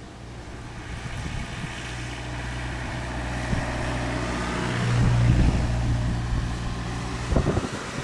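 Jet engines of an Airbus airliner on final approach, a steady drone growing louder over the first five seconds. Wind gusts buffet the microphone near the end.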